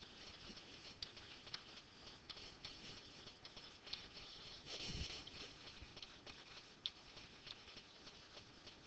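Faint light taps and scratches of a stylus handwriting on a screen, irregular small clicks between strokes, with one brief soft bump about five seconds in.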